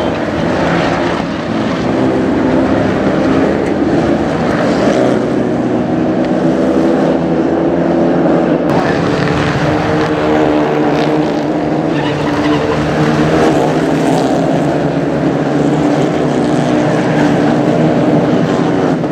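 A pack of Renault Clio Cup race cars passing at racing speed. Several engines run at high revs together, their pitches rising and falling as the cars accelerate and shift.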